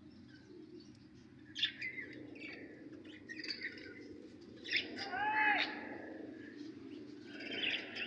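Caged budgerigars chirping and chattering in a series of short high calls, loudest about five seconds in, over a steady low background murmur.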